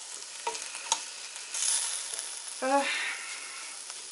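Hot pickle brine sizzling in a wok, with a wooden spatula stirring and knocking against a stainless steel pot of fried pork and cucumbers. There are a few sharp knocks in the first second and a short rising squeak about two and a half seconds in.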